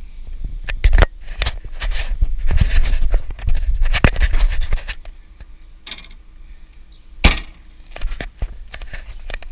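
Bags and backpacks being shoved into a car trunk: rustling, scraping and knocking as they are pushed in, with fabric rubbing against a handheld camera. About seven seconds in comes one sharp bang as the trunk lid is shut.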